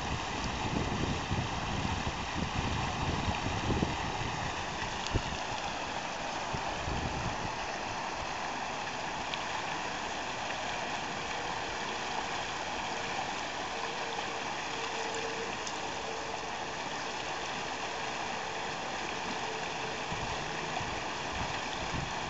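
Water gushing up through a sinkhole in broken street asphalt, a steady rushing and bubbling, with some low rumbling in the first few seconds.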